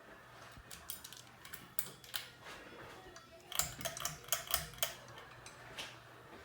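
Kitchen clatter of dishes and cutlery, a run of sharp clicks that is densest from about three and a half to five seconds in. Under it is the steady low hum of a hugger ceiling fan running.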